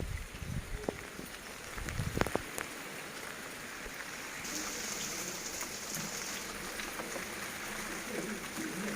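Heavy rain falling in a steady hiss with scattered drop clicks, louder and brighter from about halfway through. Low rumbling thumps in the first two and a half seconds.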